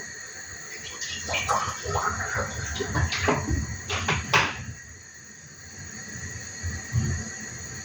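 Kitchen work sounds: a run of irregular knocks and clinks with water splashing, settling down about two thirds of the way through.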